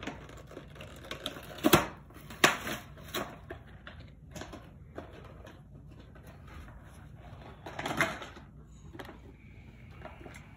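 Gift wrapping paper rustling and tearing in irregular crinkly bursts as a present is unwrapped, loudest about two seconds in and again about eight seconds in.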